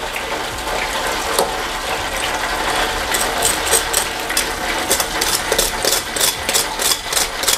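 Breaded chicken deep-frying in hot oil, a steady bubbling sizzle. From about three seconds in, metal tongs click and scrape against the fryer's wire basket, several clicks a second, as the pieces are pressed and turned.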